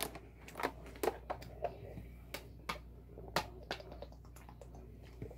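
A plastic drink bottle being uncapped and handled up close: a scatter of light clicks and crackles, then drinking from it.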